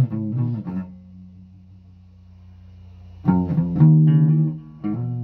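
Guitar being played: a few quick plucked notes, then one low note left to ring out and fade, then fresh notes picked from about three seconds in.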